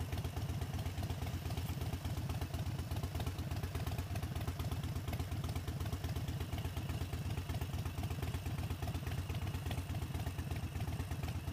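Harley-Davidson Sportster 72's 1200 cc V-twin idling steadily with a low, even rumble.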